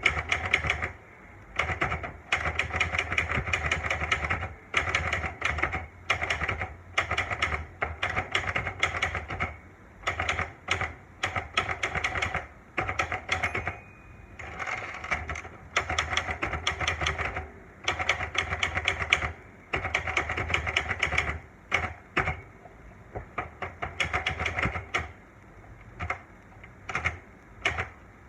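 Olivetti Lettera 92 manual portable typewriter being typed on: rapid runs of key strikes in bursts of a second or two, broken by short pauses. A brief ringing tone sounds about halfway through.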